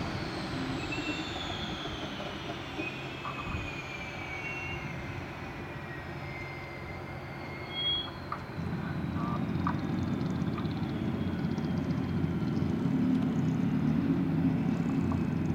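Boeing 929 jetfoil's gas turbines whining as they wind down with the boat alongside the quay: the high whine falls steadily in pitch over about eight seconds. Under it is a low rumble that grows louder in the second half, and there is one short high beep about eight seconds in.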